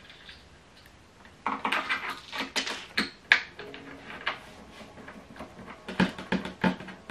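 Clicks, small knocks and rustling from handling flat-pack fittings and a screwdriver over a plastic bag of screws, in a busy cluster about one and a half seconds in and a few sharper knocks about six seconds in.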